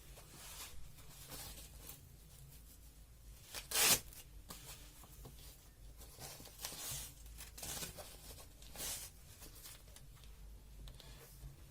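Faint rustling and scraping handling noises, with one louder brief rasp about four seconds in.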